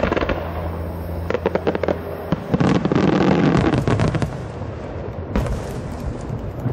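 Starmine fireworks display: shells launching and bursting in quick succession. A run of sharp cracks and rapid crackling leads into a louder, dense burst about two and a half seconds in that lasts over a second, then a single sharp bang a couple of seconds later.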